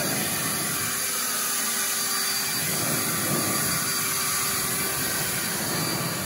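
EGO cordless battery leaf blower running steadily, a rush of air with a faint high motor whine, blowing twigs and debris off the track.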